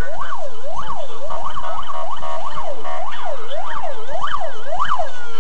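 Emergency vehicle siren with a fast up-and-down sweep, about two cycles a second, cutting off near the end.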